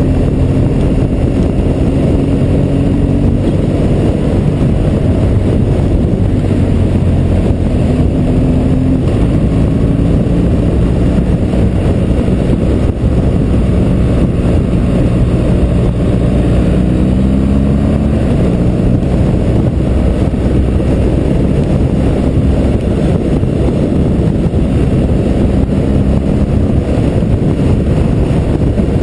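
BMW motorcycle engine running at road speed, heard from the rider's seat with steady wind rumble on the microphone. The engine note rises and falls a few times with throttle and gear changes.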